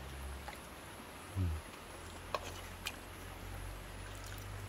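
A few faint clinks of a metal ladle against an aluminium cooking pot while soup is being served, over a low steady hum. A short low voice sound comes about a second and a half in.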